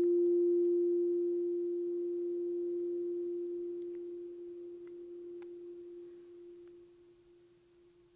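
Frosted crystal singing bowl ringing with one pure, steady tone that slowly fades away.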